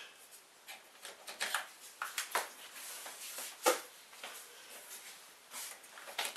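Scattered light clicks and knocks from hands handling an inkjet printer's plastic parts as the ink cartridges are pulled from the print-head carriage, with one louder knock a little past halfway.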